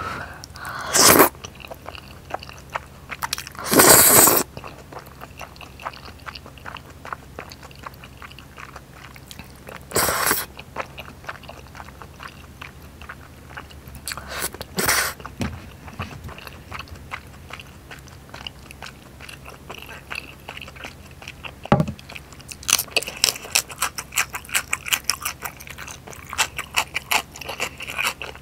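A person eating saucy spicy ramen noodles up close: four loud, short slurps of noodles spread through the first half. Between them come wet chewing clicks, which turn quick and dense near the end.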